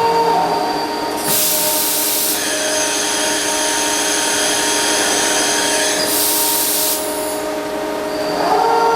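Hankook CNC machining center running with a steady, multi-tone mechanical whine. A loud hiss comes in about a second in and lasts about a second, then again about six seconds in for about a second and a half, with higher steady tones held in between.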